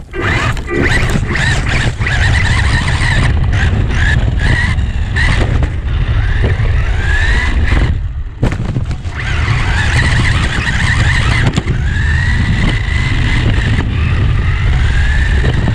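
Losi Mini B RC buggy driving, its electric motor whining up and down in pitch as it speeds up and slows, over a loud rumble from tyres and wind on the car-mounted camera. The sound drops briefly about halfway through, then picks up again.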